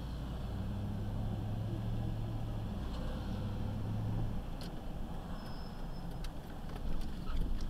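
Truck engine running under way, heard from inside the cab as a steady low drone that drops away about four seconds in, with a few light clicks and knocks in the second half.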